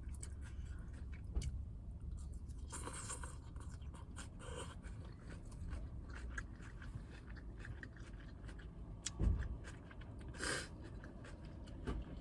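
A person chewing a salad close to the microphone, with soft crunching and small clicks, over a low steady hum; a louder thump about nine seconds in.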